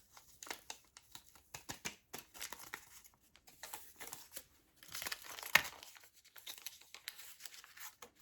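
Paper drink-mix packets being crinkled and torn open, in a string of short crackles and tears, with the sharpest crackle about five and a half seconds in.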